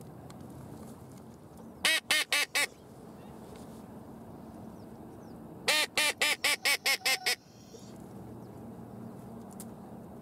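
Hand-blown duck call sounding two runs of quacks: four quick quacks about two seconds in, then a longer run of about eight quacks a few seconds later.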